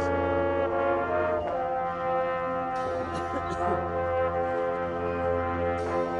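Marching band brass section playing long held chords over a low bass note, moving to a new chord about a second and a half in.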